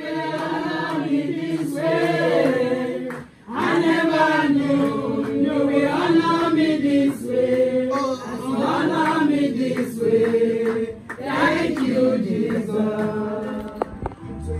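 Gospel praise song sung without instruments, a woman leading and the group singing along, with short breaks between phrases about three seconds and eleven seconds in.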